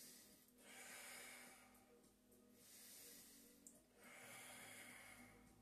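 A man's slow, faint breathing, about four soft breaths in a row, each about a second long, taken while holding a stretch.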